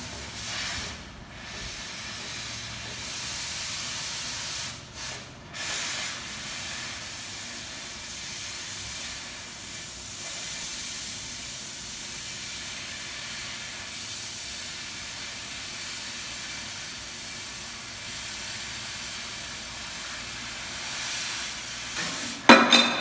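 Oxy-acetylene cutting torch hissing steadily as it cuts through thin steel plate, with the cutting-oxygen lever pressed to blow the molten slag out of the kerf; the hiss dips briefly about one second and five seconds in. Near the end comes a sudden loud pop.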